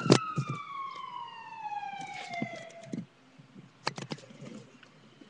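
Emergency vehicle siren wailing, its pitch sliding slowly down for about three seconds before it cuts out. A sharp knock right at the start and a couple of clicks about four seconds in.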